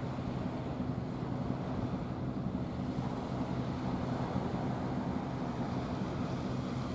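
Seaside ambience: wind and surf noise with a steady low hum underneath, unchanging throughout.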